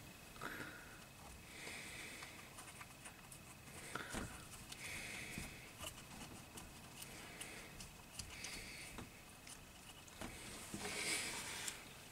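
Faint fiddling sounds as fingers fit small nuts onto an electric motor's terminal studs: light clicks and soft rustling.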